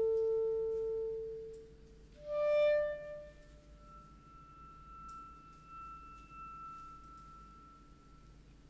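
Solo clarinet playing slow, long-held notes. A held note fades out about a second and a half in, a louder, brighter note swells and dies away a little after two seconds, then a soft, high note is held for several seconds.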